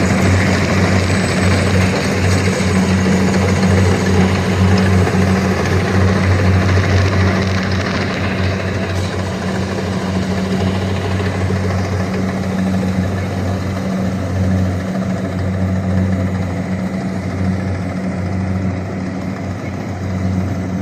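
Kubota DC120X combine harvester running steadily, its engine giving a strong, even low hum under a wide mechanical rush.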